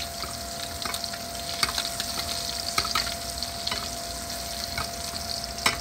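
Scallops frying in brown butter with thyme in a stainless steel pan, sizzling steadily, while a spoon bastes them with irregular clinks and scrapes against the pan.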